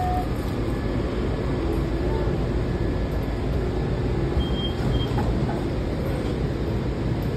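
Steady rumble and hum inside a Washington Metro railcar, with a faint steady tone above it.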